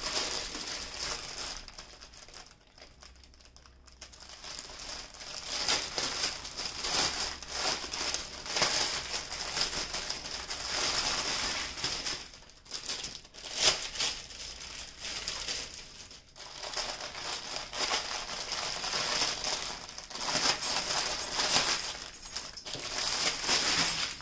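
Plastic crinkling as a clear bag full of small sealed diamond-painting drill packets is handled, opened and tipped out, the packets rustling and clicking as they slide out. There is a short lull about two to four seconds in.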